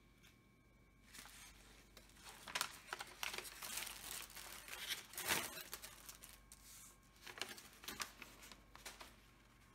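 Thin clear plastic packaging bag crinkling and rustling as it is handled and crumpled, in irregular crackles that are loudest about five seconds in and die away near the end.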